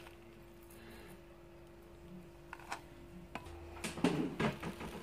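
Quiet room tone with a steady hum, a few light clicks, and a short burst of handling noise about four seconds in.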